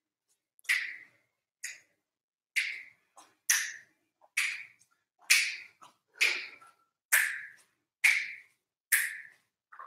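A man breathing out sharply through the mouth about once a second: ten short hissing breaths, each cut in hard and trailing off.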